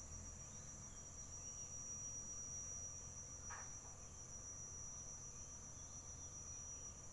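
Faint, steady, high-pitched drone of an insect chorus, with a low rumble beneath it and a brief chirp about three and a half seconds in.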